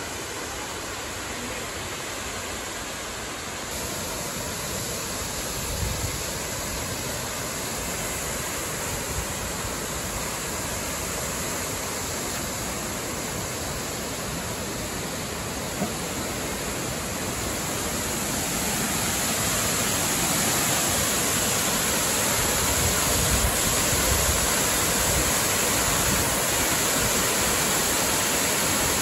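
Wide curtain waterfall pouring over a long rock ledge and down through boulders: a steady rush of falling water that grows louder about two-thirds of the way through. A few faint knocks sound in the first half.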